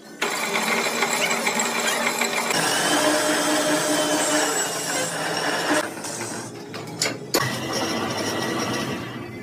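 A small machine or power tool running with a continuous whirring, grinding noise, interrupted by a few brief dropouts around the middle and near the end.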